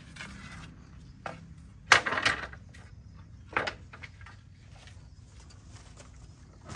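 Wooden boards and poles knocking together as they are picked up off the ground: a loud clatter of several knocks about two seconds in, and a single knock a second and a half later.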